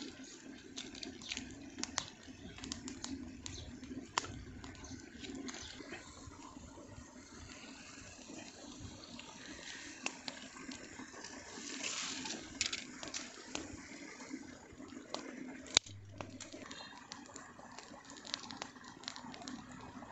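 Shallow stream of water running steadily, with scattered sharp clicks and snaps from a wood fire being tended and one louder snap about three-quarters of the way in.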